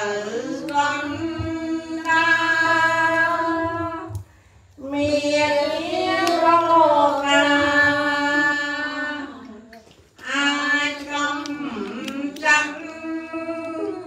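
A single high-pitched voice chanting Khmer Buddhist verses in long, held, slowly wavering melodic phrases. There are three phrases, with short breath pauses between them.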